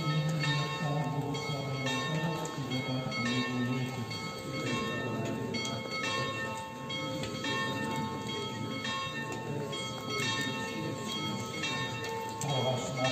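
Bells ringing, struck again and again at an uneven pace, each stroke ringing on in several steady tones, with low voices of a crowd beneath.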